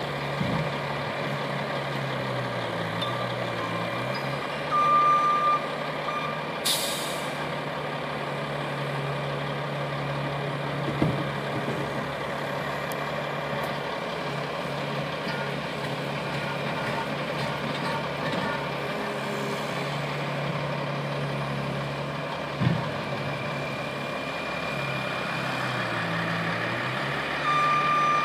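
A skid-steer loader's engine runs throughout, its pitch dropping and rising as the machine works the snow. A backup alarm beeps about five seconds in and again near the end. A short burst of air hiss comes about seven seconds in, and there are two clunks.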